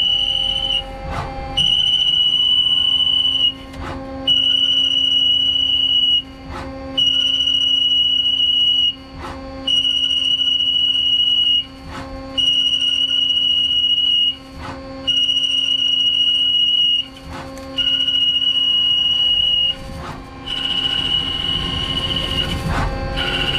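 CNC lathe threading tool cutting fine threads on a hardened Grade 8 steel bolt. On each pass it gives a steady high-pitched squeal about two seconds long, and the pass repeats about every two and a half seconds with a short gap and click as the tool retracts and returns, over the steady hum of the spinning lathe. Near the end the squeal turns rougher, a sound the machinist takes as a sign he may have burned up the tool.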